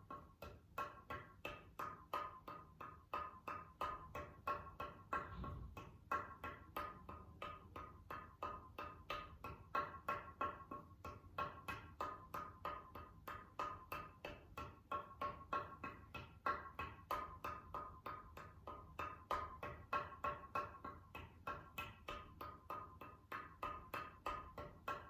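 Muted darbuka played with soft, fast, evenly spaced finger strokes, about five a second, running through a repeating finger-pattern exercise; the muting keeps hard strokes quiet.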